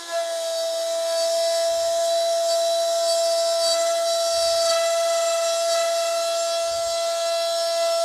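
DeWalt plunge router running at full speed with a steady high-pitched whine and hiss, its quarter-inch spiral upcut bit taking a shallow pass of about an eighth of an inch in wood as it is guided along a jig.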